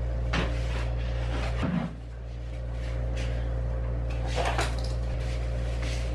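Ceiling light fixture giving off a steady electrical buzz, with a few wooden knocks from a broom handle. About two seconds in, a knock comes and the buzz dips, then builds back over the next second.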